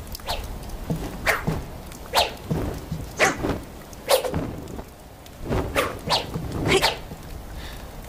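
A sword swung through the air in a sword-dance routine: about nine short, sharp swishes at irregular intervals.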